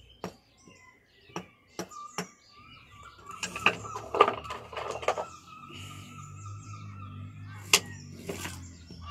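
Stone fossil nodules being struck to crack them open: a few sharp knocks in the first couple of seconds and one more near the end, with scraping and rustling of stone fragments in between.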